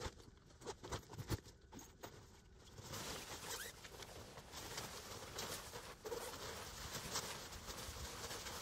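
Rustling of fabric and a zipper as a duffel bag is handled and camouflage clothing is pulled on, with a few light knocks in the first couple of seconds.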